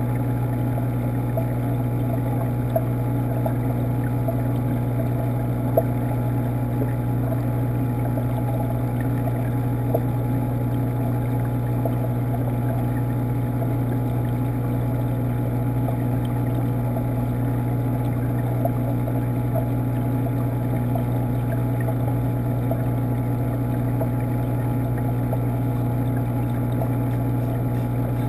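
Steady low hum of a reef aquarium's water pump, heard through the water of the tank, with a few faint clicks.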